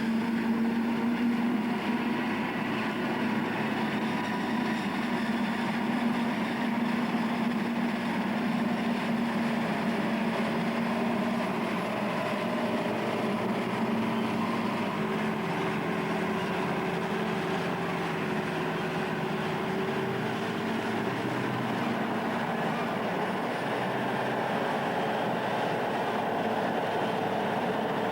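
John Deere self-propelled forage harvester running steadily while cutting maize, a constant mechanical drone whose tones shift slightly about halfway through.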